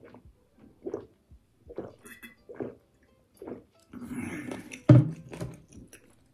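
A person gulping water from a glass bottle, four swallows about a second apart, then a breathy exhale and a sharp thump as the bottle is set down.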